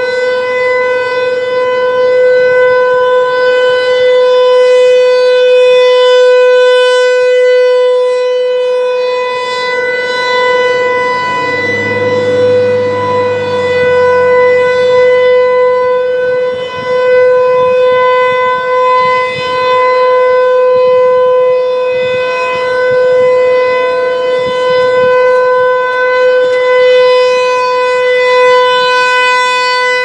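Federal Signal Equinox rotating electronic siren sounding its steady alert tone of about 501 Hz during a test. The loudness swells and dips slightly as the turning horn sweeps round.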